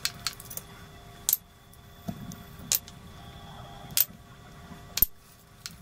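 Sharp, irregular clicks and light clinks of china plate and small bowls as a raw steak is seasoned and pressed onto the plate by hand, about eight in all, the loudest about five seconds in, over a faint steady hum.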